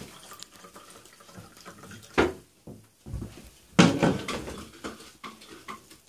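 Vinegar poured into a plastic cup, with knocks and clatter of cups and bottles handled on a hard counter. There are two loud moments: a sharp knock about two seconds in, and a louder splash-like burst near four seconds.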